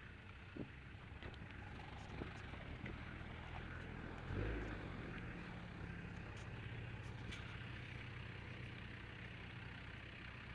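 Land Rover engine running with a steady low drone as the vehicle wades through a deep river ford. Over it are rustling and a few short knocks from the camera being carried against clothing at a run, with one heavier thump about four and a half seconds in.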